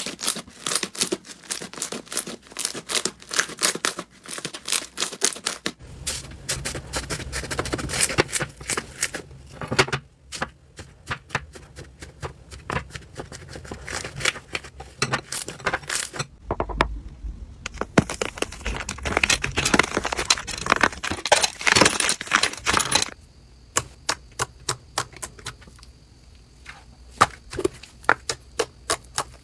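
Hands squeezing, kneading and poking slime, giving a dense run of wet clicks, pops and crackles. The texture changes abruptly several times as one slime clip cuts to the next.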